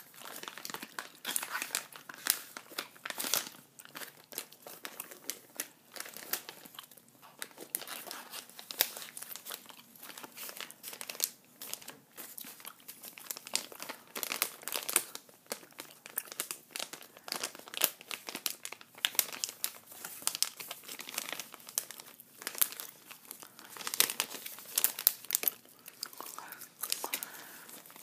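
Paper and plastic sticker packaging crinkling and rustling as hands handle it, with many small irregular crackles.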